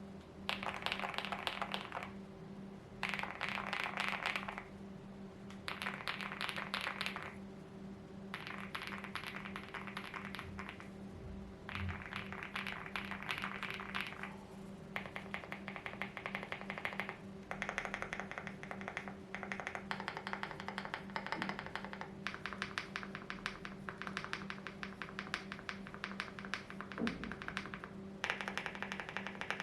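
Mchose GX87 tenkeyless mechanical keyboard with KTT Kang Grey switches lubed with Krytox 205G0, typed on in fast runs of keystrokes. The first half comes in bursts of a second or two with short pauses, and from about halfway on the typing is more continuous. A steady low hum sits underneath.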